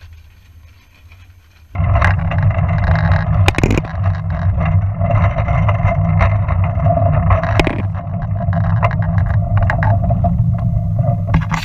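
Railway velocipede rolling along the rails, heard from on board the machine: a steady rumble from the wheels with a held ringing note and scattered sharp clicks. It comes in suddenly about two seconds in, after a faint outdoor background.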